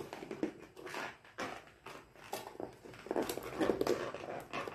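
Handling noise: a round lidded food box being gripped and shifted on a cardboard gift box, with scattered light taps, scrapes and rustles at an uneven pace.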